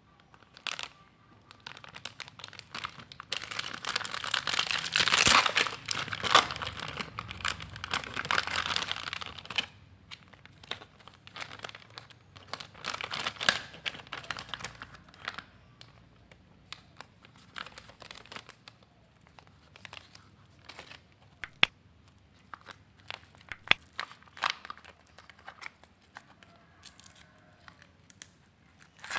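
Packaging of a Garnier hair colour kit being crinkled and torn open by hand, in irregular bursts. The handling is busiest in the first ten seconds and tails off into scattered sharp crackles and clicks.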